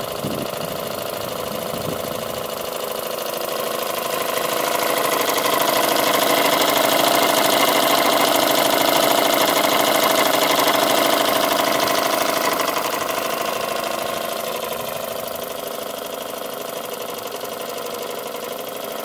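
Stuart ISIS model steam engine running steadily on test, with a fast, even beat and a hiss of steam. It grows louder for several seconds in the middle, then eases off again.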